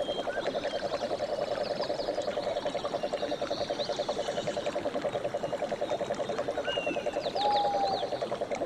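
A frog's low, rapid pulsing trill, held without a break, with short bird chirps and whistles above it. A louder held whistled note comes about three-quarters of the way through.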